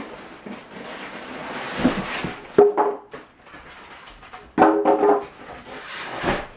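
Packing material rustling as it is pulled out of a cardboard box, then short squeaky squeals of styrofoam rubbing against the cardboard, once about two and a half seconds in and again a couple of seconds later.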